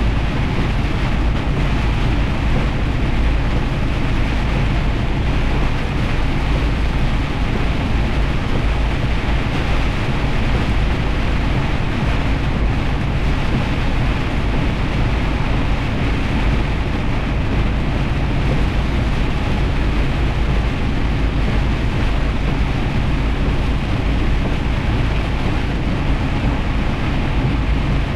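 Steady noise of a semi truck driving in heavy rain: a low engine and road drone under a constant wash of rain and wet-tyre hiss.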